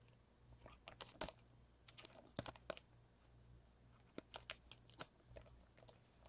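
Faint, irregular clicks and flicks of Topps Chrome trading cards being handled and slid one behind another through a pack. A low steady hum runs beneath.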